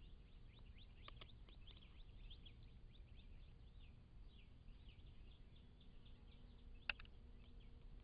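Faint, busy chirping of small birds in the background, many short high chirps over a low steady hiss. A single sharp click about seven seconds in.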